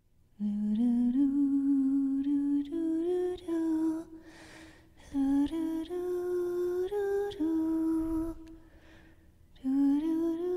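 A single voice humming a slow wordless melody in three phrases, each climbing step by step in pitch, with two short pauses between them.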